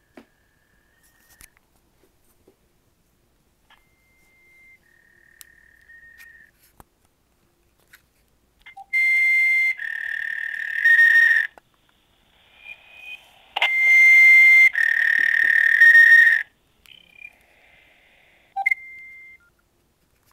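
Recorded voicemail of repetitive electronic tones: short, steady whistle-like beeps stepping between two high pitches. Two louder stretches of the same tones over a hiss last about three seconds each.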